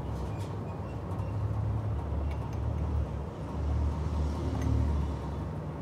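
Low engine rumble that swells twice, like a motor vehicle running close by, with a few faint light clicks of metal pump parts being handled on the bench.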